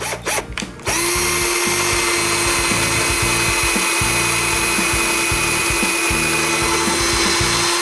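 Electric drill running at a steady speed with a constant high whine for about seven seconds, its bit going into the wooden roof of a bird feeder. A few light knocks come just before it starts.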